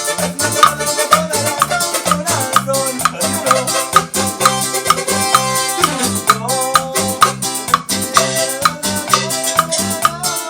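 Cumbia band music with a steady dance beat: percussion with shakers, a bass line and a melody line.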